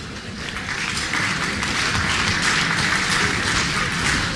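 Crowd applauding: many hands clapping together, building a little during the first second.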